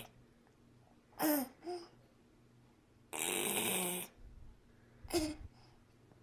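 A semi-unresponsive person's strange breathing and vocal noises: short vocal sounds that drop in pitch, a loud rasping, snore-like breath lasting about a second in the middle, and another short vocal sound near the end. The episode is one the family suspects may be a seizure.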